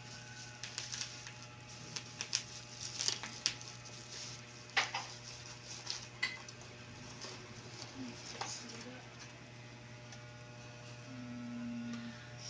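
Packaging being handled and opened: a run of crinkles, clicks and taps through the first six seconds or so, then quieter, over a steady low hum.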